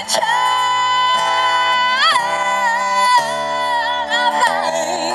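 A woman singing live into a microphone, amplified, with acoustic guitar accompaniment. She holds long notes, with a wavering swell about two seconds in.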